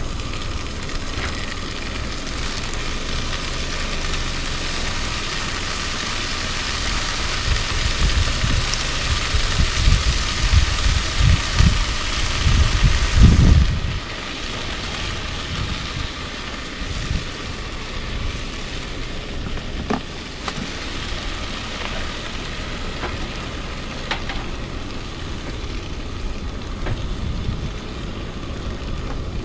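Wind buffeting the microphone in gusts over a steady hiss. The gusts build about a quarter of the way in, are strongest just before the middle, then drop off suddenly and the sound settles to a lower, steadier hiss.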